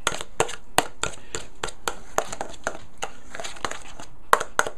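Metal spoon stirring a thick, creamy cheesecake mixture in a glass bowl, clinking and scraping against the glass in quick, irregular clicks, about three a second.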